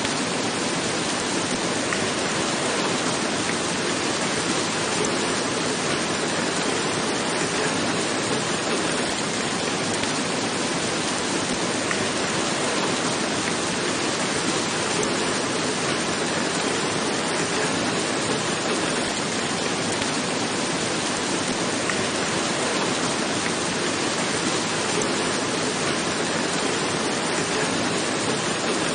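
Rain falling steadily on a roof: an even, unbroken hiss with no lulls or thunder.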